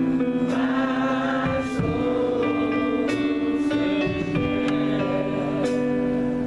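Music: held chords with a singing voice, in a gospel style.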